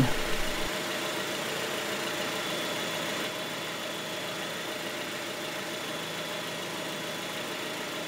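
2016 Jeep Renegade's engine idling steadily with the air conditioning running at its highest setting during a refrigerant recharge.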